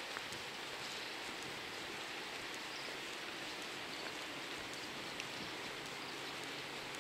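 Steady outdoor background hiss, even throughout, with a faint low hum coming in about four seconds in and a few light clicks.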